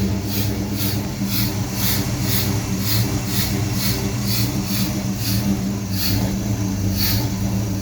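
Engine fitted with Holley Sniper EFI throttle-body fuel injection and HEI ignition, idling roughly with a steady pulse a few times a second. The rough idle followed tightening a loose O2 sensor and has not been cured by rerunning the setup wizard or disabling closed loop.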